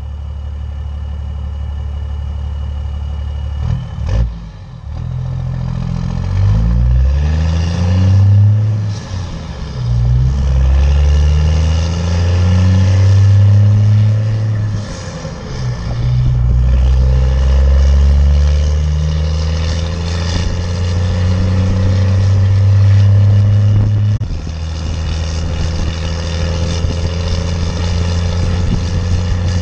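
The 5.9-litre inline-six turbo diesel of a 12-valve Cummins in a 1995 Dodge Ram 3500, heard through a 5-inch exhaust while pulling about 12,000 lb of trailer and skid steer. It runs steadily, then accelerates under load through the gears of its manual gearbox: the pitch climbs and drops back at each shift, about 9 and 15 seconds in. It then holds a steady pull and eases off slightly near the end.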